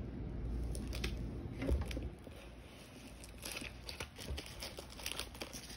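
Small clicks and crinkling from fingers working cured resin pieces out of a flexible silicone mold, after a low rumble of handling noise with a thump in the first two seconds.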